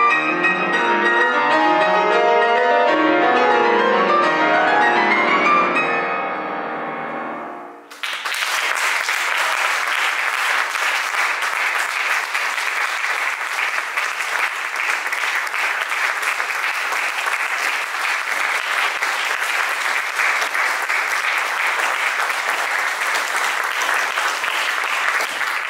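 Grand piano played in fast runs up and down that end and die away about six to eight seconds in. Audience applause then breaks out suddenly and continues steadily.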